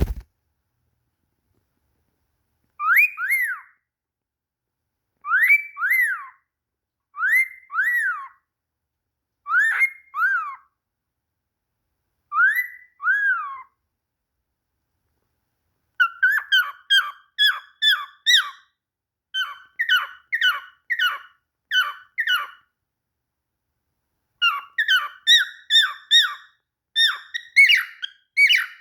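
Cockatiel whistling. First comes a slurred up-and-down whistle phrase, repeated about every two seconds; from about halfway it turns to quick runs of short chirping whistles.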